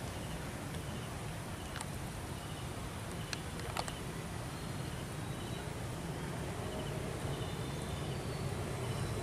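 Outdoor park ambience: a steady low rumble with faint repeated high chirping and a few light clicks.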